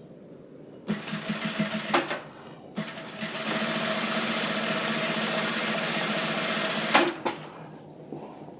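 Sewing machine stitching a hem: a short run of about a second, a brief stop, then a steady run of about four seconds that stops abruptly.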